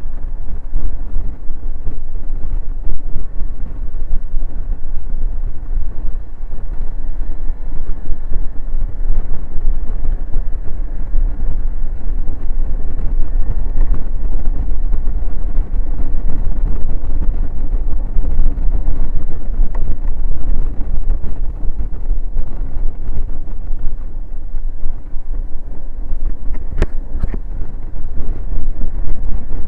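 Honda Forza 125 scooter, a single-cylinder 125cc, riding at road speed: its engine running steadily under a loud, fluttering rush of wind on the microphone and tyre noise. Two short clicks near the end.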